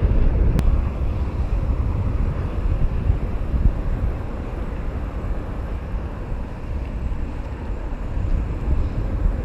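Wind buffeting the microphone: a steady low rumble, with one faint click about half a second in.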